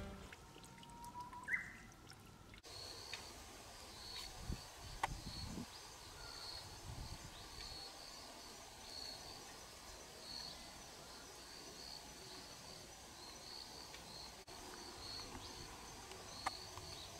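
Faint countryside ambience: from about two and a half seconds in, a small high chirp repeats every second or so, with a few low rumbles.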